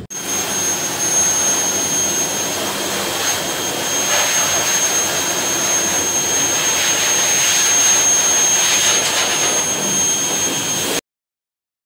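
Pet grooming blower dryer running steadily at full power: a loud rush of air with a thin high whine. It cuts off abruptly about a second before the end.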